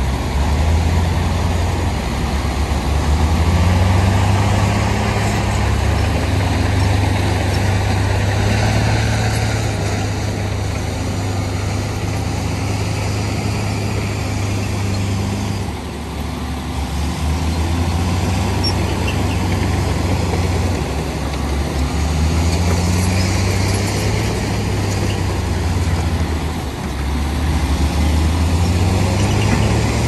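Heavy diesel engine of earthmoving machinery running under changing load, its pitch rising and falling every few seconds as it revs up and eases off. About halfway through, and again near the end, it briefly drops back.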